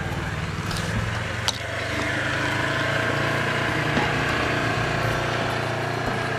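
A vehicle engine running steadily, with a few light knocks over it.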